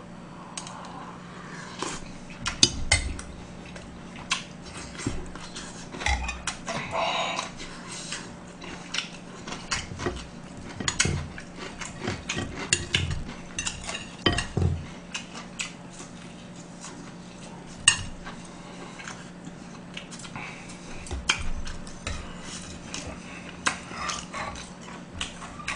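Metal spoon and chopsticks clinking and scraping against a black soup pot and plates in short, irregular clicks while someone eats soup and pancake, with softer eating noises between.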